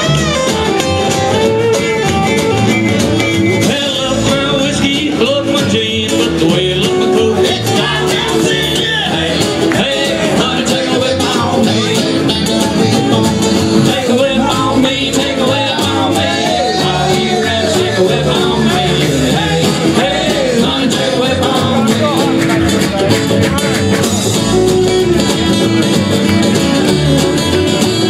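Live acoustic string band playing: strummed acoustic guitars and a banjo with a washboard scraped in rhythm, and a man singing over them.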